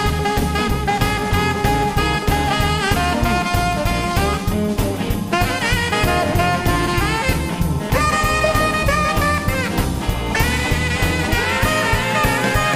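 Tenor saxophone soloing over a live blues band with acoustic guitar and drum kit, bending notes and holding long notes in the second half.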